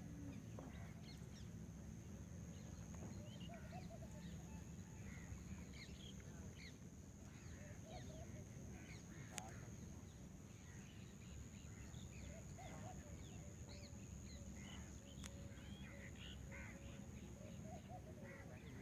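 A chorus of many birds calling at once, with short overlapping calls scattered throughout. It sits over a steady low rumble and a thin, steady high whine, and two sharp clicks come partway through.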